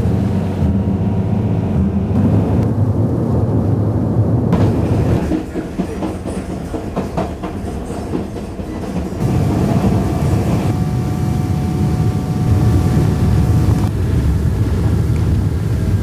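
Train running along the track: a steady low rumble with the rattle and clatter of wheels on rails.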